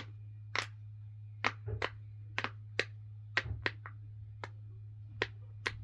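Sharp clicks from a fidget toy worked by hand, about a dozen at uneven intervals, over a low steady hum.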